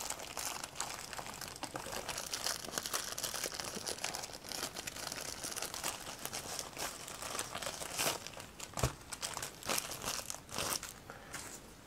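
Plastic courier mailer pouch being pulled open and crumpled by hand: continuous crinkling with many sharp crackles.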